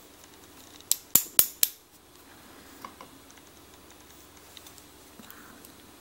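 Four quick, sharp metallic clicks about a second in, then a few light ticks: tweezers and small steel parts handled while the pins are taken out of a brass lock cylinder.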